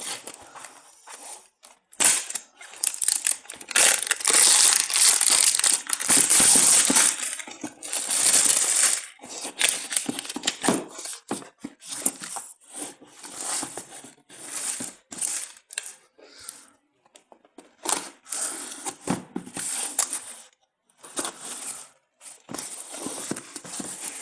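Shipping packaging being torn open and crinkled by hand, in irregular rustling bursts that are densest and loudest for several seconds early on, then come in shorter handlings with brief pauses.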